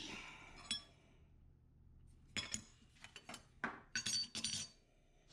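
Faint clinks and short scratches of a steel knife blade and a small scribing tool against a stone surface plate, as a center line is scribed along the blade's spine. There is one sharp clink near the start, then a run of brief clicks and scrapes in the second half.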